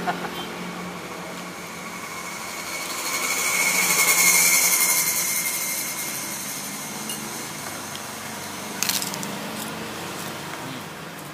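A road vehicle passing by: a rushing noise with a faint whine that swells to a peak about four seconds in and fades away, over a steady low hum. A single sharp clack near the end.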